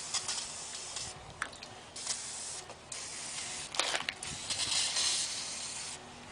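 Aerosol can spraying in several hisses: a short one at the start, another about two seconds in, and a longer, louder one from about four to six seconds in. The tire is being charged with flammable spray, to be lit so that it pops the bead onto the rim.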